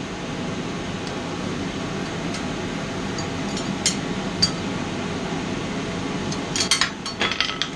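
A forge's air blower runs with a steady, even hum. A couple of light metallic clinks come around the middle, and a quick flurry of ringing clinks of steel on steel follows near the end.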